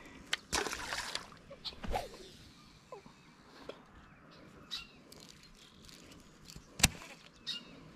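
Birds chirping here and there, with a short rush of handling noise about half a second in and a single sharp click near the end.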